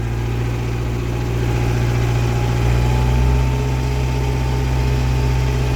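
Case 4210 tractor's diesel engine running steadily as the tractor moves in reverse, with a faint steady whine over it from about a second and a half in.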